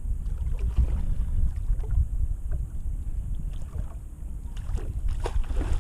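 Low, uneven rumble of wind buffeting the action-camera microphone out on the boat, with a couple of brief knocks near the end.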